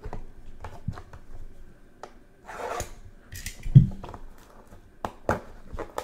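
Plastic shrink-wrap being cut and torn off a cardboard trading-card box: a tearing rustle of plastic a few seconds in, scattered clicks and taps of fingers and a cutter on the box, and one dull thump just before the four-second mark.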